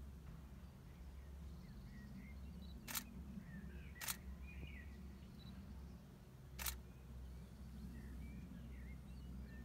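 DSLR shutter firing three single shots, the second about a second after the first and the third some two and a half seconds later, for flash-lit macro photographs.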